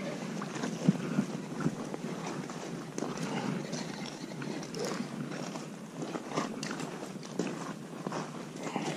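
Steady hiss of flowing river water, with scattered light clicks and rustles from hands working a centerpin rod and reel while playing a hooked fish.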